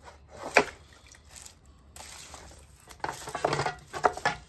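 Roasted bones and vegetables scraped off a metal sheet pan with a silicone spatula and dropped into a stockpot of water: a sharp clunk about half a second in, then a cluster of scraping and knocking near the end.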